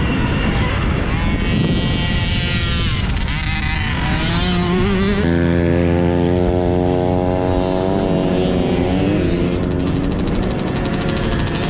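Husqvarna electric mini dirt bike's motor whining, its pitch rising and falling with speed, then holding steady for a few seconds mid-ride. Wind is rushing over the helmet-mounted camera's microphone.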